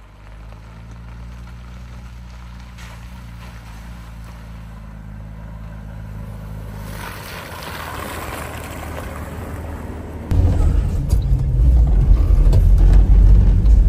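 Volvo C303 off-road truck's engine running as it is driven, a steady low drone. About ten seconds in it jumps suddenly to a much louder low rumble.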